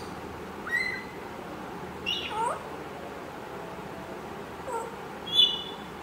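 African grey parrot giving a few short whistles and squeaky calls, one rising whistle and one sweeping up and down, the loudest a sharp high one near the end.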